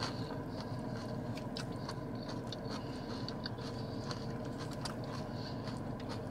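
A person chewing a mouthful of salad, with small scattered crunches and clicks, over the steady hum of a car's air conditioning.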